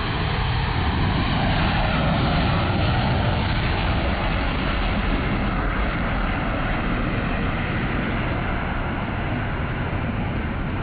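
Four F/A-18 Hornet jets of the Blue Angels Diamond formation climbing out in full afterburner: a loud, steady jet roar that swells about two seconds in and eases slightly toward the end.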